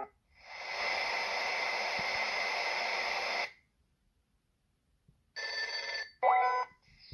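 The alarm clock's small speaker plays its built-in nature sounds: a hissing, rushing sound for about three seconds, then a pause. Near the end comes a second short burst of hiss and a few quick rising chirps.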